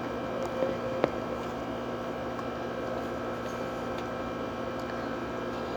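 A steady electrical hum made of several held tones, with a couple of faint clicks in the first second.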